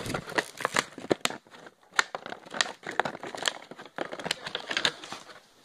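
Toy blaster packaging crinkling and rustling as it is handled, with irregular sharp crackles and clicks, dying down near the end.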